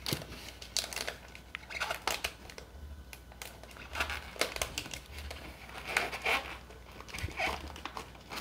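Plastic wrap crinkling and polystyrene packing foam rubbing and creaking as a wrapped remote control is pried out of its foam tray, in irregular rustling bursts that are loudest about two and six seconds in.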